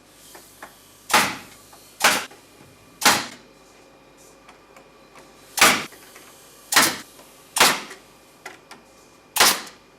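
A hammer driving nails: seven sharp blows at uneven intervals, with a few light taps between them.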